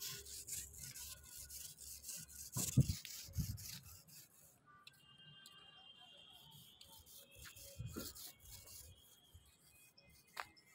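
Rapid, repeated scraping of a hand tool rubbed along the cement edge of a brick parapet, with a louder knock among the strokes; the scraping stops about four seconds in, leaving faint tones and an occasional small knock.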